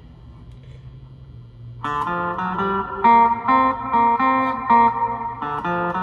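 Custom electric guitar with two hand-wound P90 pickups, played through an amp. A faint low hum runs for about two seconds, then a picked riff of repeated notes and chords starts in a steady rhythm.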